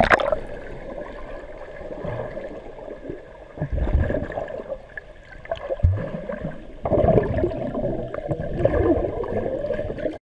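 A loud splash as a boy jumps into a swimming pool, then muffled underwater gurgling and sloshing heard from under the surface, with a few low thumps as the swimmers kick.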